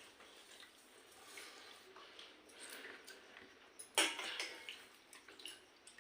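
Pakhala (rice soaked in water) being eaten by hand: soft wet dabbling and small clicks of dishware, with one sharper clink about four seconds in.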